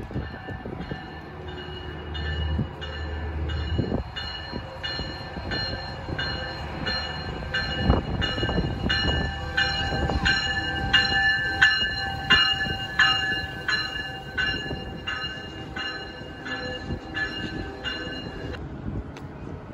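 Metrolink bi-level commuter train arriving at the platform and slowing to a stop, its bell ringing steadily about three strokes a second over the rumble of the wheels. The bell stops near the end.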